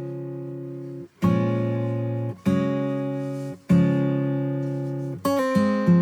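Background music: acoustic guitar strumming chords, one about every second and a quarter, each ringing and slowly fading, with a quicker run of notes near the end.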